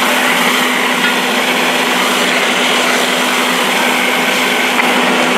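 Steady, loud hiss of a fire hose nozzle spraying water onto smouldering debris, over a constant low hum.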